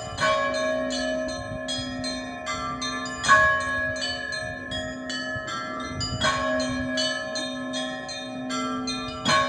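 Monastery bells being rung together. A heavier bell is struck about every three seconds, four times, while smaller bells chime quickly in between and all of them ring on.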